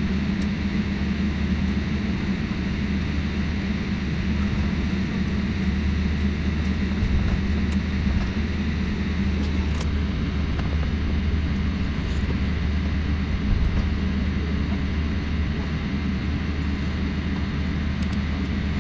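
Steady cabin drone of a jet airliner taxiing on the ground: a low, even engine hum with a faint steady high whine above it.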